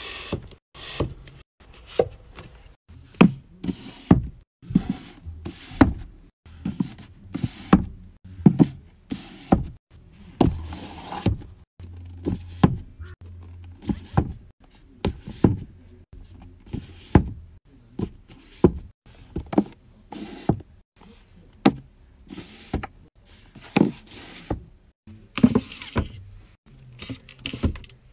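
Books being set down and pushed into place on a shelf: a series of short knocks and thuds, about one every second, with the scuff and slide of covers against the shelf and against each other.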